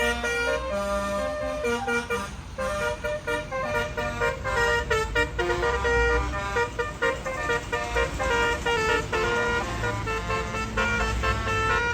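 Tour bus's 'basuri' telolet musical air horn playing a tune, one pitched note after another in quick succession, over the low rumble of the bus engine running.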